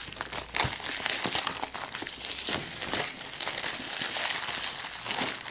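Plastic shrink-wrap film torn off a box and crumpled in the hand, with a dense run of crinkles and small crackles.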